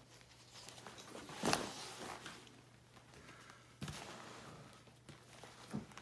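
Pages of a ring-binder portfolio with plastic sleeves being turned by hand: a loud crackling rustle of plastic about one and a half seconds in, more handling from about four seconds in, and a short thump near the end, over a faint steady hum.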